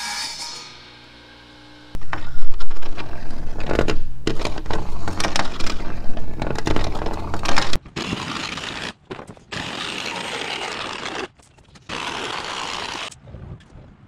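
Background music fades out, then loud, irregular scraping and knocking as a wood-composite soffit panel is handled and worked. Several short clips are cut together, and the sound breaks off abruptly between them.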